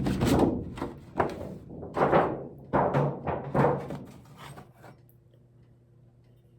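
Decorative tree toppers and their stands being handled and set down on a table: a string of hollow knocks and clunks that stops about five seconds in, leaving a faint steady hum.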